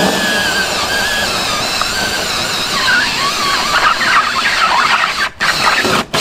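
Cordless drill spinning a standard hole saw into a motorcycle bib mousse, the saw squealing with a wavering pitch as it grinds and tears through the foam rubber; it stops briefly about five seconds in. The ordinary hole saw gets through but rips the mousse rather than cutting it cleanly.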